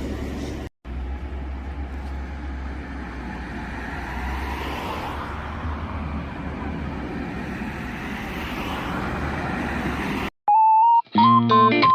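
Steady road-traffic noise with a low rumble, broken by a brief cut under a second in. Near the end it stops dead, a short steady beep-like tone sounds, and electric guitar music begins.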